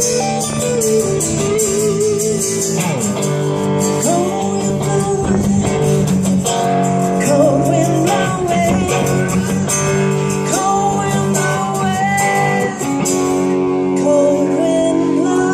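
Live blues-style guitar music: strummed chords under a lead line of bent, wavering notes, as the song's closing passage.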